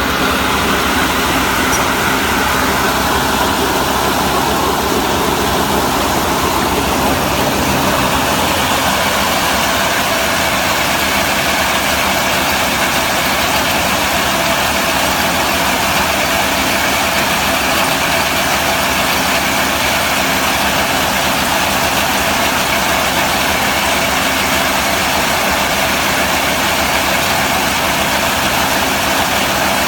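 Engine-driven round hay baler running steadily: the engine and the baler's machinery make a loud, even mechanical noise.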